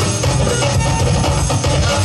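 Loud music with a steady drum beat and heavy bass, played for breakdancers to battle to.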